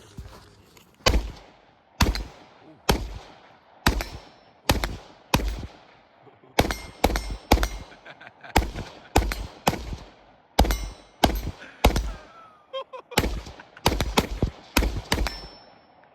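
AR-15 rifle in 5.56 fitted with a Super Safety trigger, firing about two dozen shots at an uneven pace, often in quick strings of two to four, each shot followed by a short echo.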